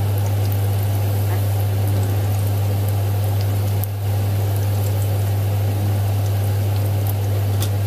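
Battered sweet potato slices bubbling and crackling in hot oil in an electric deep fryer, over a steady low electrical hum.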